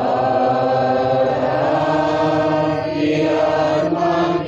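Church congregation and choir chanting a liturgical response together in long held notes, changing pitch a couple of times near the end.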